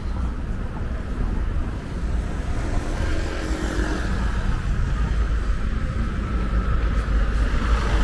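City street traffic: cars passing with a steady low rumble.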